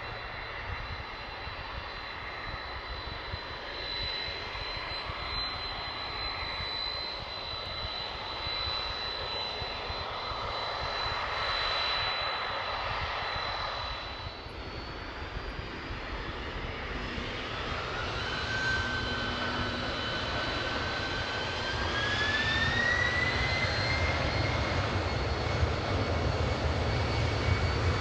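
Jet engines of a JAL Boeing 767-300 (767-346) whining steadily. About two-thirds of the way in, the whine climbs in pitch as the engines spool up for takeoff, and the low rumble grows louder toward the end.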